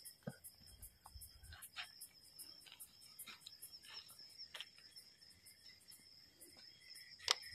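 Crickets chirping steadily at night in an even, high-pitched pulsing rhythm, with faint scattered ticks and one sharp click near the end.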